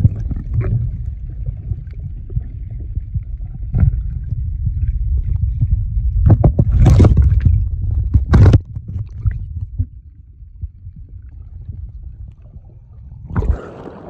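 Muffled low rumble of water moving over a phone's microphone while it is underwater during a dive, with a few sharp knocks and clicks, the loudest around the middle. Near the end the sound opens up and turns brighter as the phone breaks the surface with a splash.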